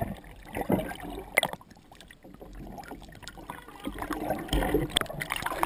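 Water sloshing and gurgling around a GoPro's waterproof housing as it passes under and back up through the surface, with scattered sharp clicks. The sloshing grows louder about four seconds in.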